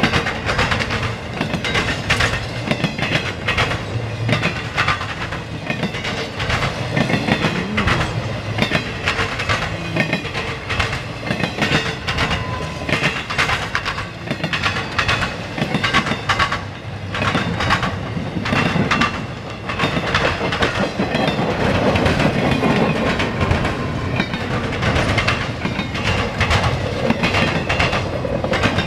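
Intermodal freight train's flatcars loaded with trailers and containers rolling past: a continuous rumble of steel wheels on rail with a fast, irregular clickety-clack.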